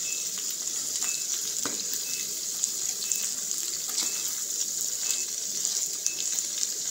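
Dagaa (omena), small dried lake fish, sizzling steadily in hot cooking oil in a pan, with scattered small clicks and scrapes from a spoon stirring it.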